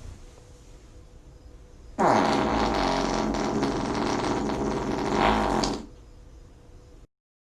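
One long, loud fart lasting about four seconds, starting suddenly about two seconds in. It dips in pitch at the start, then holds a steady tone until it stops.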